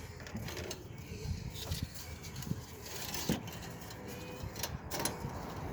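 Scattered light clicks, taps and rattles of metal being handled, as wire is wrapped to hang a truck's brake caliper, over a low background rumble.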